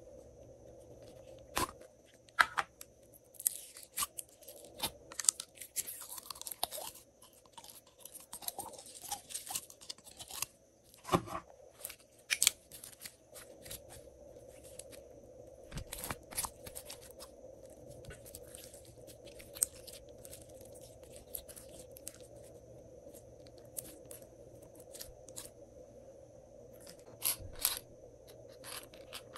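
Slime being tipped out and squeezed by hand, giving irregular sticky crackles and pops, with a denser run of crackling a few seconds in.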